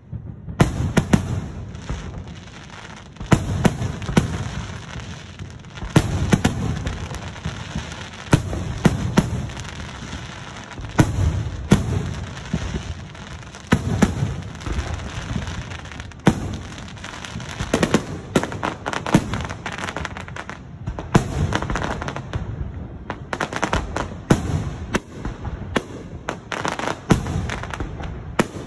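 Aerial fireworks shells bursting in quick succession: a long run of sharp bangs, several every few seconds, each followed by a low rumbling echo.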